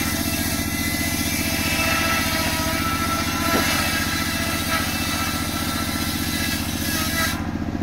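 Large engine-driven circular sawmill blade ripping a log lengthwise, its high cutting noise over the engine's steady, low pulsing run. The cutting noise drops away suddenly about seven seconds in as the blade comes out of the wood, leaving the engine running.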